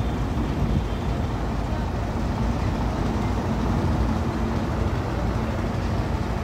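Diesel engine of a Hino FM heavy truck running at idle, a steady low rumble.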